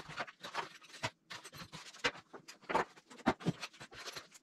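A small cardboard box and a small plastic part being handled: a run of irregular scratches, rustles and light clicks, a few of them louder about three seconds in.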